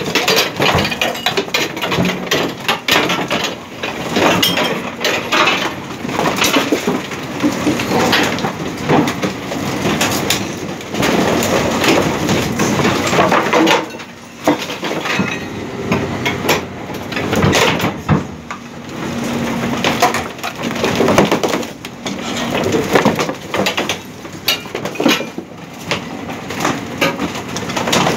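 Garbage truck compactor crushing old metal-framed chairs and wardrobe boards: a continuous clatter of wood cracking and splintering and metal frames clanking and scraping, over a steady hum from the truck.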